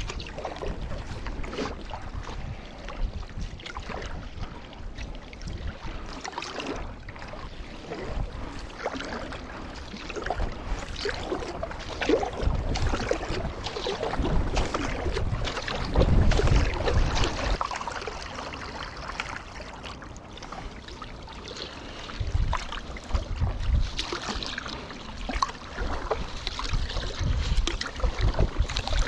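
Paddle strokes and water splashing around a paddle board, with gusts of wind buffeting a mouth-held GoPro on a bite mount in low rumbling surges.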